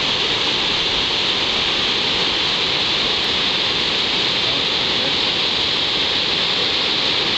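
Loud, steady rush of whitewater in Lava Falls, a big rapid on the Colorado River, unbroken and even throughout.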